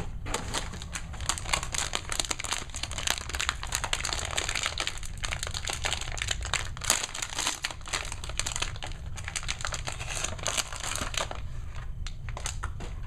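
Crinkling of a Heroclix booster pack's wrapper being handled and opened, a dense run of crackles that eases off near the end.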